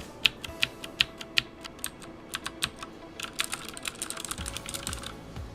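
Cooler Master CM Storm QuickFire Rapid mechanical keyboard with clicky Cherry MX Blue switches being typed on. It starts with separate sharp key clicks, about four a second, then about three seconds in breaks into a quick run of rapid typing that stops shortly before the end.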